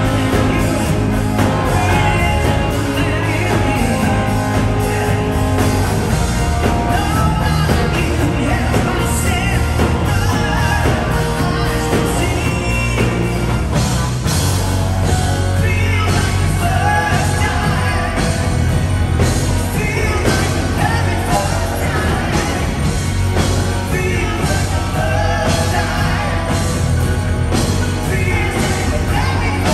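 Live rock band playing: a male singer over electric guitars, bass guitar and drums.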